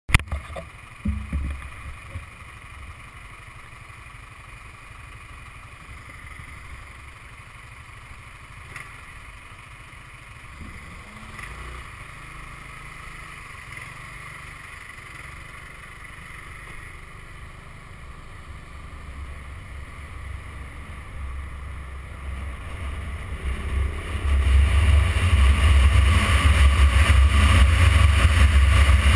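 Motorcycle engine running at low speed, a steady low rumble while creeping through stopped traffic. About 24 s in the bike speeds up and the sound jumps much louder, with engine and rushing wind noise on the microphone.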